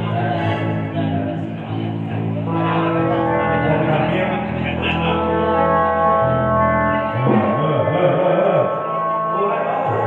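Live band music at a sound check: an arranger keyboard holding sustained chords over a low bass line, with electric guitar.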